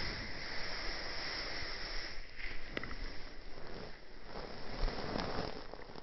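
A Norwegian Forest Cat–Persian mix cat grooming itself, licking its paw and fur as it washes its face: an uneven run of close licking and rubbing noises with a couple of small clicks.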